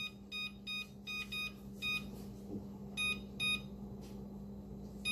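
Electric oven's touch control panel beeping as the temperature-up key is pressed repeatedly: about eight short, high electronic beeps, one per press, each raising the bake setting five degrees. The beeps come quickly in the first two seconds, then with longer gaps.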